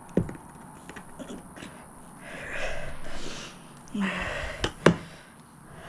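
Shears snipping through the rim of a thin plastic plant pot: three sharp snaps, one at the start and two close together about a second before the end, the last the loudest. Between the cuts there is breathy hiss of a person breathing out.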